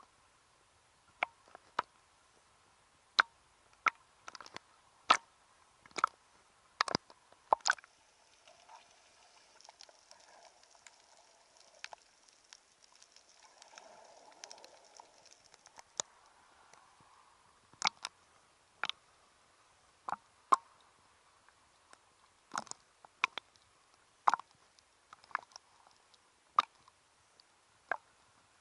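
Sparse, sharp clicks and snaps at irregular intervals, roughly one a second and sometimes in quick pairs, over a faint steady hiss.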